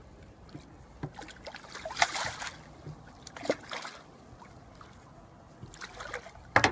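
Short water splashes and sloshes from a landing net held in a lake as a common carp thrashes in the mesh, loudest about two seconds in and again near the end.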